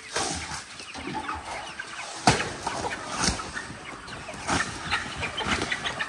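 A flock of free-range chickens clucking as they crowd around. A few sharp knocks cut in, the loudest about two seconds in.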